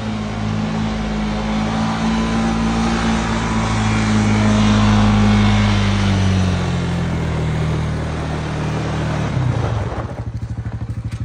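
ATV (quad bike) engine running as the machine drives up. Its pitch drops after about six seconds as it slows, and about ten seconds in it settles into a fast, even pulsing idle.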